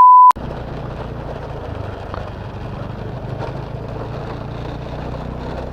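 A loud, steady censor bleep cuts off just after the start. A Honda Scoopy scooter's engine then runs on steadily with an even low hum.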